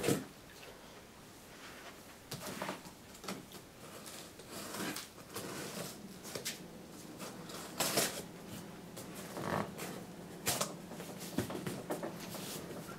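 Packaging handled by hand during an unboxing: irregular rustling and light clicks of plastic and cardboard, louder near the middle and again near the end.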